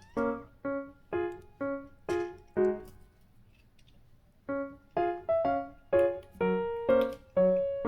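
Background music: a light piano or keyboard tune of short, separate notes, about two a second, which stops for a moment in the middle and then picks up again.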